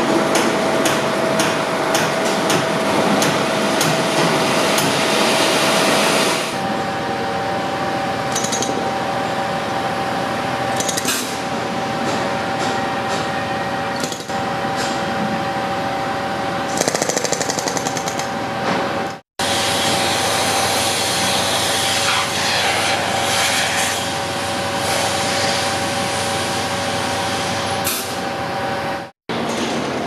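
Construction-site machinery: fast mechanical hammering for the first six seconds or so, then heavy engines running with a steady whine, broken by abrupt cuts.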